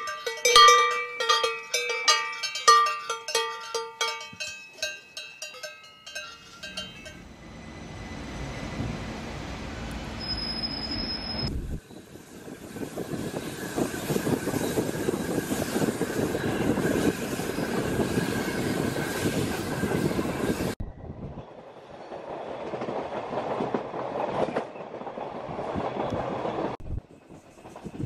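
About six seconds of ringing, bell-like tones struck in quick succession, then the running noise of a Berner Oberland-Bahn train heard from a carriage window: steady wheel and rail noise with a brief high squeal about ten seconds in, broken by several sudden cuts.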